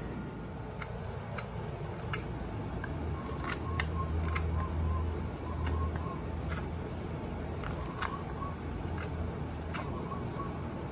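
ESEE 4 fixed-blade knife slicing into a pine spoon blank: about a dozen short, crisp cuts at an irregular pace. A low steady hum runs underneath and swells for a few seconds in the middle.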